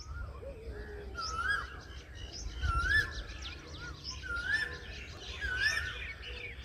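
Birds calling and chirping, one of them repeating the same short whistled phrase, rising then falling, about four times, over a low steady rumble.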